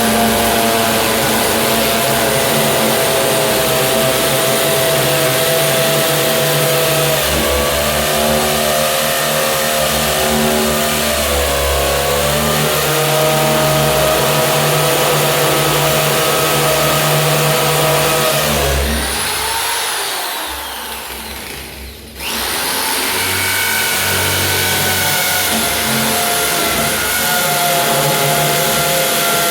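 Britânia BFU01 electric drill with a 10 mm bit boring into a masonry wall, its motor running steadily with a whine. About two-thirds through, the motor winds down in a falling whine, then starts up again a couple of seconds later and runs on.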